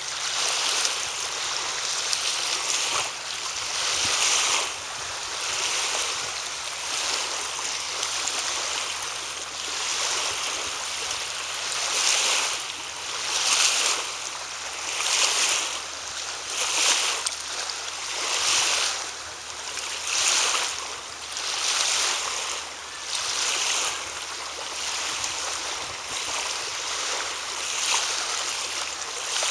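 Small waves washing on a shore: a steady hiss that swells and falls about every second and a half.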